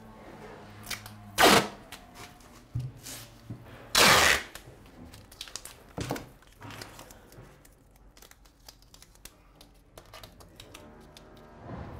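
Vinyl tape being ripped off the roll in short pulls, the two loudest about one and a half and four seconds in, with softer crinkles and rips of tape handling between.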